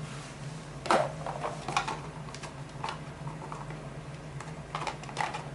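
Light clicks and scrapes of plastic Roomba parts being handled and scrubbed during cleaning, the sharpest about a second in and a cluster near the end, over a steady low hum.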